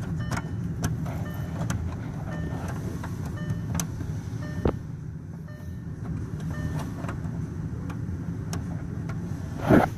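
Scan tool's OBD-II plug being handled and pushed into the diagnostic port under the dashboard: scattered plastic clicks and scrapes, with a louder knock near the end, over a steady low hum.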